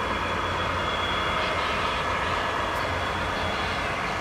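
Large-scale (1:29) garden model freight train running past on metal track: a steady rolling hiss and hum from the metal wheels and the locomotive motors.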